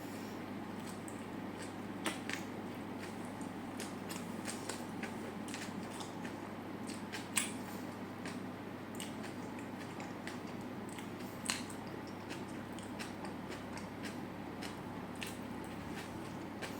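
Close-miked chewing and biting of food, with many small crisp clicks and a few louder snaps, over a steady low hum.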